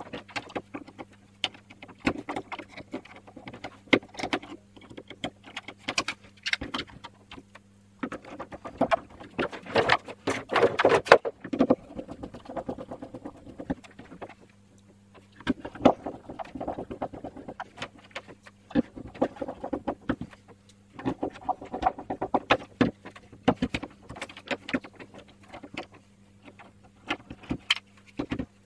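Hands fitting small circuit boards and ribbon cables into 3D-printed plastic cases: irregular clicks, taps and rustling of plastic parts, busiest in two stretches around the middle, over a faint steady low hum.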